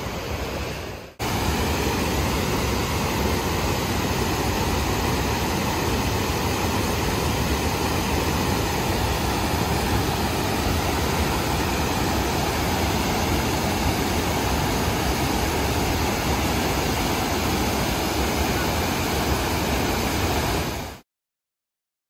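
Steady rush of a monsoon-swollen river pouring over a stepped weir and tumbling through boulders, a heavy flow that comes from the recent rainy season. It cuts off abruptly near the end.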